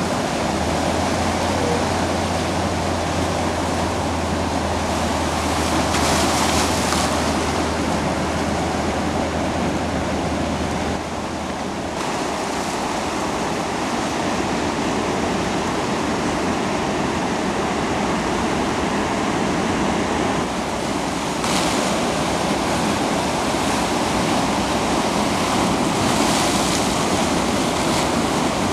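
Ocean surf: a steady rush of breaking waves, swelling into louder crashes a few times.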